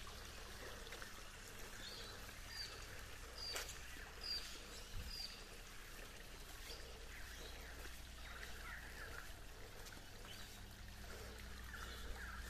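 Faint outdoor ambience: scattered short bird chirps over a low steady background hiss, with a single click about three and a half seconds in.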